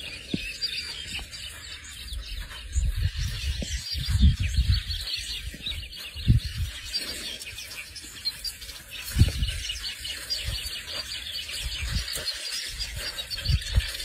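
Birds chirping steadily in the bush, with a few low thumps of noise now and then, the strongest about four and nine seconds in.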